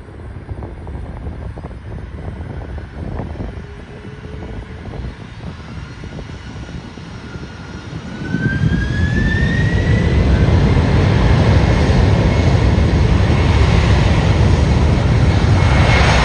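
Airliner's jet engines spooling up to takeoff power: a rising whine, then about halfway through a jump to loud steady engine noise with a steady high-pitched tone over it.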